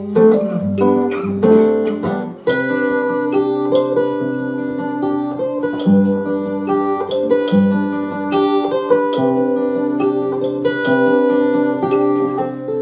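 Acoustic guitar playing the song's instrumental ending, with strummed chords and bass notes changing every second or two, and no singing.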